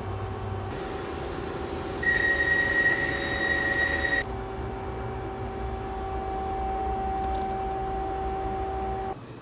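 CNC machine running with a steady whine. From about a second in a loud hiss joins it, and a shrill high whistle rises over the hiss for about two seconds; both cut off suddenly after about four seconds. The whine carries on until it stops shortly before the end.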